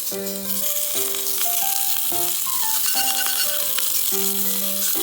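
Pork tongue sizzling as it fries in a pan: a steady crackling hiss under background music with a simple melody of held notes.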